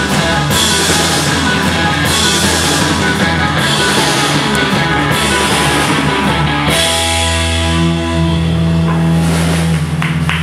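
Live rock band playing loud, with drum kit and bass guitar. About two-thirds through, the drums stop and held bass and other notes ring on.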